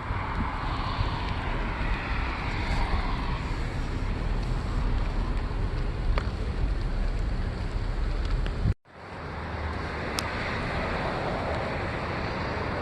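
Car running, heard from inside the cabin: a steady low rumble of engine and road noise. It breaks off for a moment about nine seconds in and then resumes.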